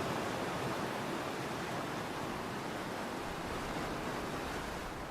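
Ocean surf: waves washing onto a shore, a steady rushing noise with no single sharp crash.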